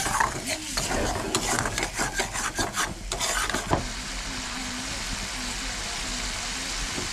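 A metal ladle scrapes and stirs thick masala gravy in a kadai, a quick run of scrapes and knocks for about the first four seconds. After that the ladle is still and the gravy sizzles steadily on the gas flame.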